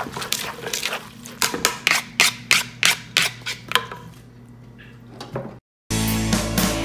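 Wooden pestle pounding papaya salad in a mortar: a run of sharp knocks about three a second, then fewer and softer strokes. The sound cuts off near the end and guitar music starts.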